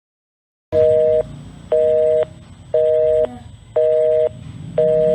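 Telephone busy signal: a steady two-note beep, on for half a second and off for half a second, repeating five times over a faint line hum. It starts just under a second in.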